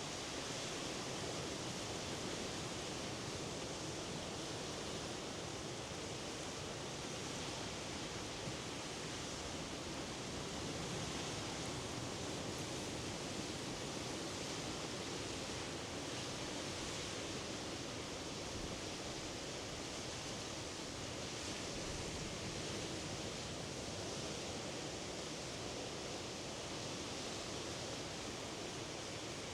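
Surf of the Norwegian Sea washing in a continuous, even rush, swelling and easing slightly every few seconds.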